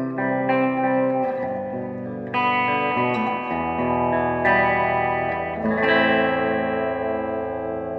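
Electric guitar played through an amp on the 2016 Gibson Les Paul Tribute HP's bridge humbucker: notes and chords ringing out, with a new one struck about every second.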